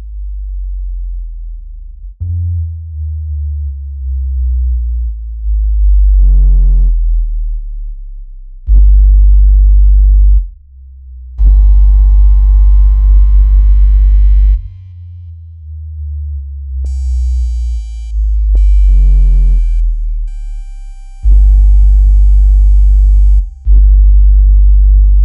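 Synthesized water-ejection tones for earbud speakers: very deep bass tones that step from pitch to pitch every second or two, some in loud blocks layered with higher tones. Near the middle a short warbling tone sounds, and about two-thirds of the way through a steady cluster of high-pitched tones plays over the bass.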